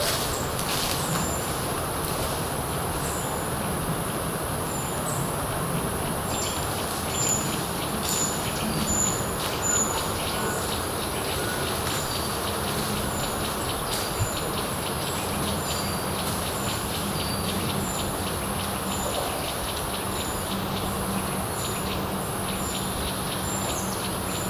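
Woodland ambience: a steady rushing noise, with a high, thin chirp repeated about once or twice a second and a steady high-pitched hiss above it.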